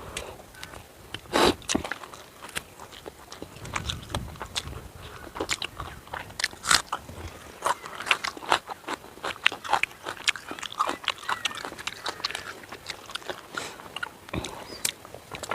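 A person chewing and biting into tandoori chicken and rice close to the microphone, with irregular sharp crunches and wet clicks of the mouth.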